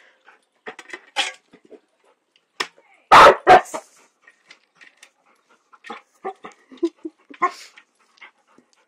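Puppy barking at a shovel: two loud barks about three seconds in, with scattered shorter, quieter sounds before and after.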